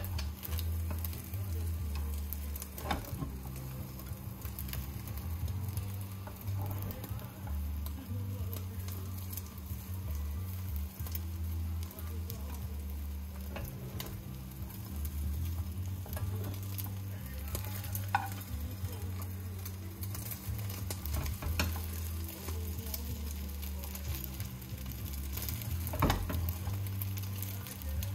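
Egg for a Korean rolled omelette sizzling as it fries in a pan, with a few sharp clicks and knocks scattered through.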